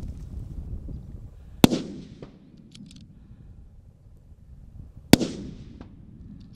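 Two rifle shots about three and a half seconds apart, each a sharp crack trailing off in an echo. A few faint clicks come between them.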